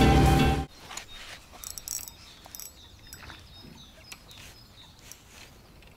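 Background music cuts off abruptly just under a second in, leaving quiet open-air ambience with faint bird chirps and a few small clicks.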